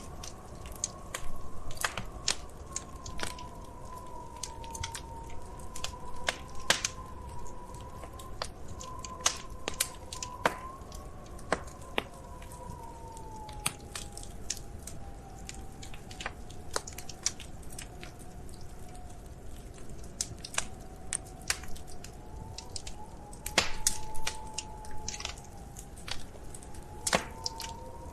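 Wood fire crackling in a fireplace: irregular sharp pops and snaps, several at a time around two seconds in and again around twenty-four seconds in, over a steady low rumble of the burning fire. A faint, slowly wavering tone sits underneath.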